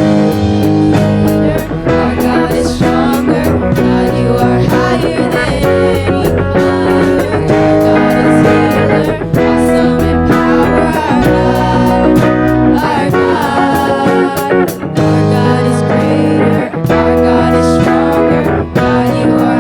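Worship band music led by guitar, with a steady drum beat and no clear words.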